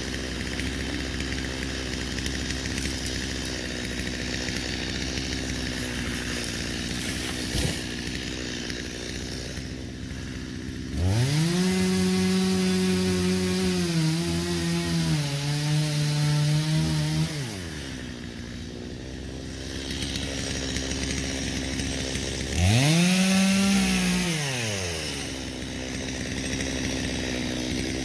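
Stihl MS 250 two-stroke chainsaw idling, then revved to full throttle twice and dropping back to idle each time. The first run lasts about six seconds, its pitch sagging briefly midway as if under load in a cut. The second, about two seconds long, comes near the end.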